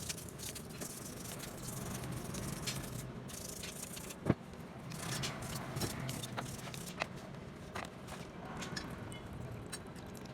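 Small clicks and rattles of metal parts and hand tools being handled, with one sharp knock about four seconds in, over a low steady hum.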